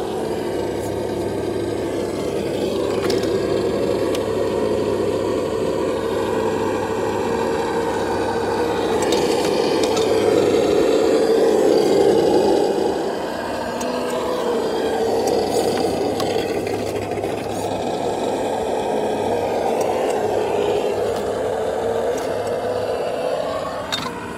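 TRX-4 RC crawler driving over rough trail: its electric motor and gears whine, rising and falling with the throttle, over the scraping and rattling of the truck and tyres on rock and dirt. The sound swells loudest about ten to twelve seconds in, then drops briefly.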